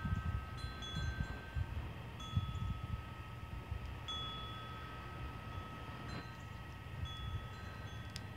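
Wind chimes ringing: a few clear, high notes start now and then and hang on for a second or more. Under them runs a low, gusty rumble of wind on the microphone.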